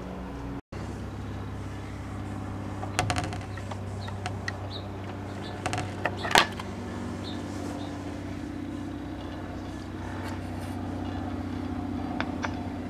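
KLH Model 20 record changer running with a steady motor hum. Sharp mechanical clicks come from its controls and the record being handled about three and six seconds in, the second the loudest, and a lighter one near the end.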